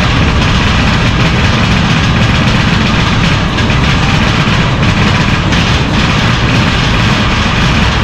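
Vekoma mine train coaster running along its track: a loud, steady rumble of the train's wheels and the moving ride.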